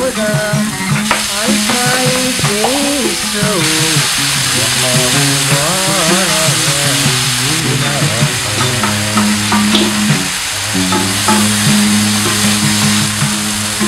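Diced chicken, tomato and onion sizzling in a frying pan over high heat, stirred with a wooden spatula, over a steady hiss. A song plays in the background throughout.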